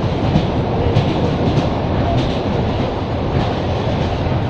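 Wheels of an ED9M electric multiple unit clattering over rail joints, heard from inside the passenger car. A steady running rumble with repeated short knocks, spaced unevenly.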